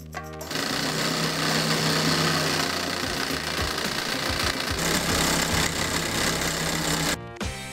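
Homemade V-twin model engine with syringe cylinders, its crank turned by a 772 DC electric motor and magnets simulating compression pulses, running steadily like a small engine. It starts about half a second in and cuts off suddenly near the end.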